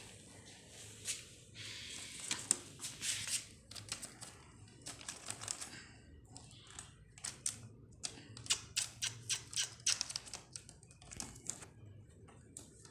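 Quick, irregular clicks and scratchy taps from a young ringneck parakeet moving about on a hand over newspaper, its beak and claws working against skin and paper. The taps come in close runs through the middle and thin out near the end.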